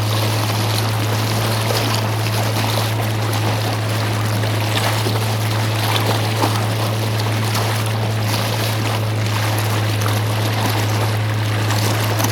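A small boat's motor running with a steady low hum, with water rushing and splashing along the hull.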